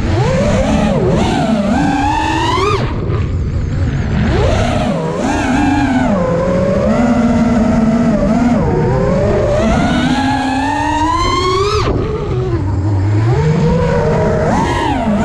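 FPV freestyle quadcopter's brushless motors and propellers whining, the pitch sweeping up and down continuously with the throttle. There are steep climbs that drop away suddenly about three and twelve seconds in.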